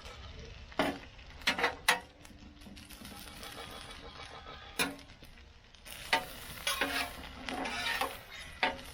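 Spatula scraping and clacking on a Blackstone flat-top griddle while diced ham and hash browns sizzle, turning the ham. A few sharp clacks in the first two seconds and one near the middle, then steadier scraping toward the end.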